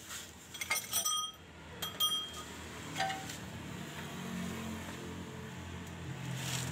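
A handful of short metallic clinks with a brief ringing, in the first three seconds, as a car's propeller shaft is handled at the transmission; a low steady hum runs beneath and grows a little louder near the end.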